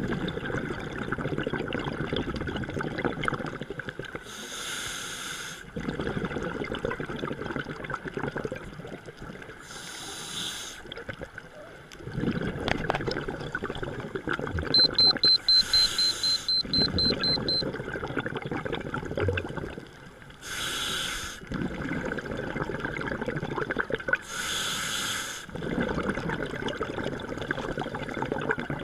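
Scuba diver breathing underwater through a regulator: five short hissing inhalations, each followed by a long rush of crackling exhaust bubbles, about one breath every five seconds. About halfway through comes a rapid series of high electronic beeps lasting about three seconds.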